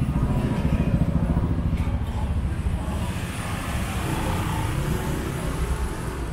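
Road traffic passing: a steady low engine rumble from cars and motorcycles, with a swell of tyre hiss partway through.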